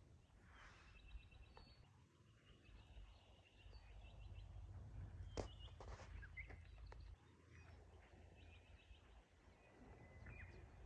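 Near silence: a faint low wind rumble on the microphone, with a bird's quick high trills coming in short runs several times, and a single sharp click about halfway through.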